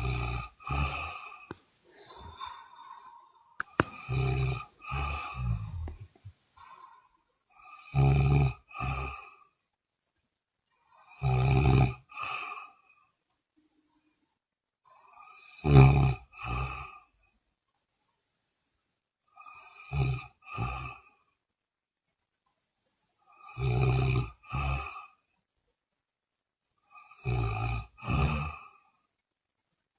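A sleeping person snoring, a snore about every four seconds. Each snore is a longer buzzing pull followed at once by a shorter second one.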